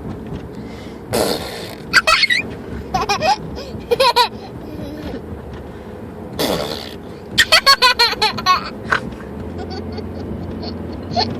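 A young child making fart noises twice, each a short rough blast, followed by high-pitched giggles and squeals, with a quick run of giggles after the second.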